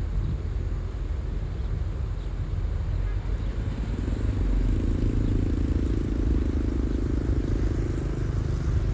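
Diesel engine of heavy earthmoving equipment running with a steady low rumble. A deeper engine hum swells in from about four seconds in and fades near the end.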